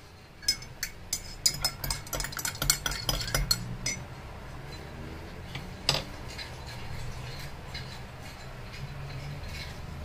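Metal spoon stirring in a ceramic coffee mug, clinking rapidly against its sides for about three and a half seconds, then one more clink about six seconds in.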